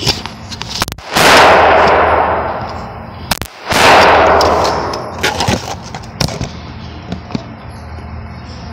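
Two gunshots about two and a half seconds apart, each with a sudden start and a long fading echo, with a few lighter clicks and knocks between them.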